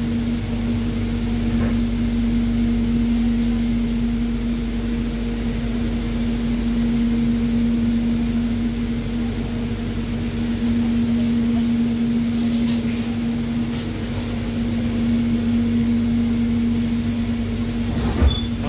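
Steady cabin noise inside the airport rail link's electric train under way: an even rumble with a constant droning hum. One short knock near the end.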